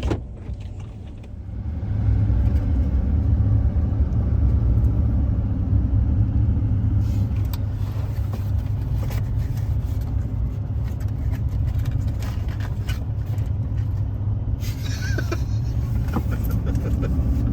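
Steady low rumble of engine and road noise inside a moving vehicle's cabin, swelling about two seconds in as the vehicle gets under way, with a sharp click at the very start.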